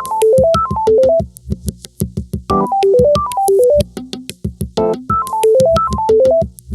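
iPhone ringtone: a synthesized keyboard melody of short stepped notes, falling then rising, that loops about every two and a half seconds over a steady electronic drum beat.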